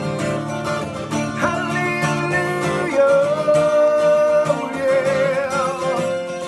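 Guitar-accompanied hymn music: plucked guitar chords under long held melody notes that waver near the end.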